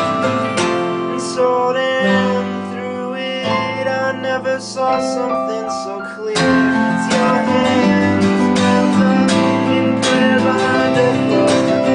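Instrumental passage of an acoustic band arrangement: acoustic guitar strumming with electric guitar and keyboard, without singing. The playing thins out and softens for a couple of seconds, then the full band comes back in strongly about six seconds in.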